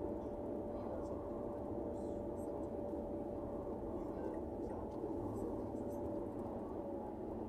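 Steady road and engine noise from inside a moving car's cabin at highway speed: a low rumble with a constant hum.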